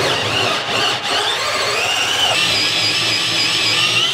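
Cordless drill spinning a hole saw through a school bus's sheet-metal floor: a steady grinding with a high squeal from the teeth cutting the metal, dipping briefly about a second in.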